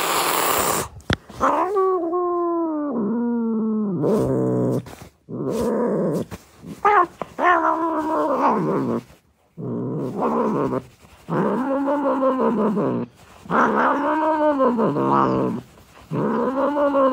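A cat meowing over and over in drawn-out calls, each rising and then falling in pitch, with short breaks between them.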